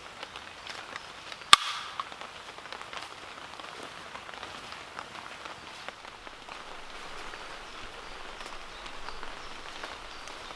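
Light patter of raindrops and drips in the woods, with one sharp crack about a second and a half in.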